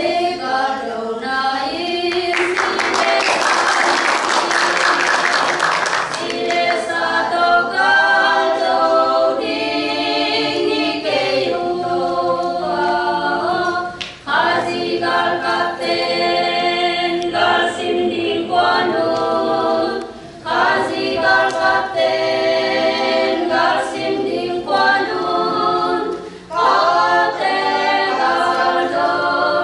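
Women's choir singing a cappella, with held notes and short breaks between phrases. A few seconds in, a loud crackling hiss covers the voices for about three seconds.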